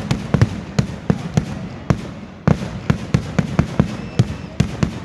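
Festival fireworks going off in a rapid, irregular barrage of bangs, about three a second.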